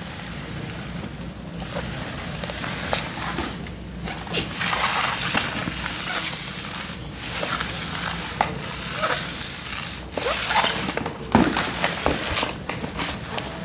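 Plastic toys being handled: rustling and crinkling in spells, with scattered light clicks and taps.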